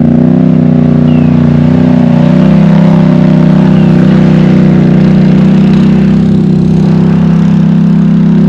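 Vehicle engine running steadily while driving, its pitch wavering a little in the first couple of seconds and then holding even.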